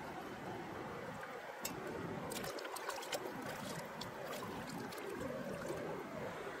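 Shallow stream water trickling steadily, with a short run of small sharp clicks in the middle.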